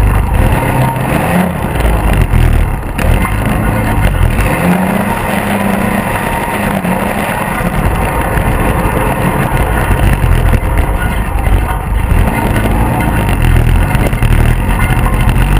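Polaris RZR 800 side-by-side's twin-cylinder engine running under way, heard from inside the open cab, its pitch rising and falling with the throttle over a steady rushing noise.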